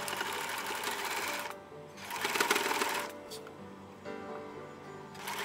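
Home sewing machine stitching flower lace trim onto a fabric brim, in short runs: about a second and a half from the start, a shorter run around two to three seconds in, and a third starting just before the end.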